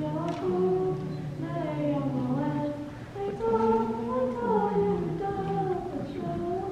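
A girl's solo voice chanting a Hebrew prayer into a microphone, in a sung melody with held notes and a short breath about three seconds in.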